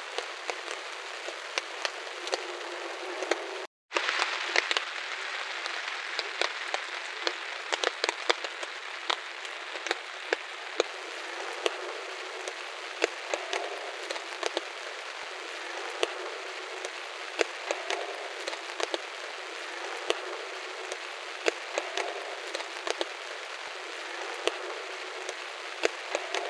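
Steady rain falling, with frequent sharp ticks of single drops hitting a surface; the sound cuts out for a moment about four seconds in.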